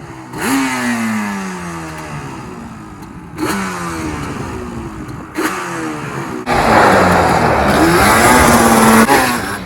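Yamaha Banshee 350 quad's twin-cylinder two-stroke engine being ridden and revved, its pitch dropping away after each burst, about three times. Then a longer, louder stretch of hard running near the end.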